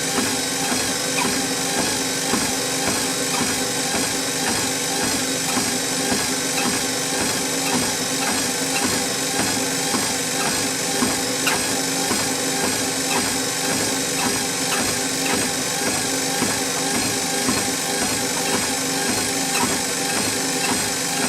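Treadmill running: a steady motor hum and belt noise, with footfalls landing on the belt at a walking pace.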